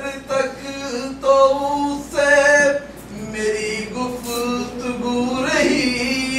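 A man singing lines of Urdu verse in tarannum, the melodic chant used for reciting poetry, with long held notes.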